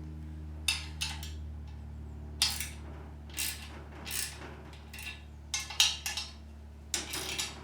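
Steel spanner clinking against the metal nuts and clamp of a chainsaw mill frame while the nuts are tightened: irregular sharp metallic clinks, some in quick pairs, over a steady low hum.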